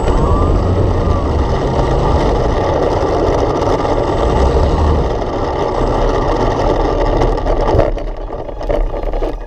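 Steady wind rush and motor-and-propeller noise picked up by a camera on board an RC plane in flight, with heavy low buffeting. The noise dies down near the end.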